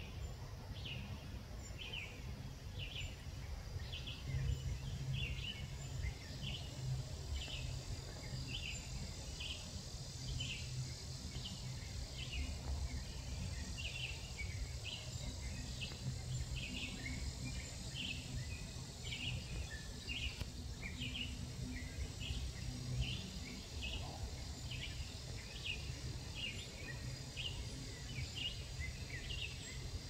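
An animal calling in a steady series of short high chirps, about two a second, over a low rumble of ambient noise.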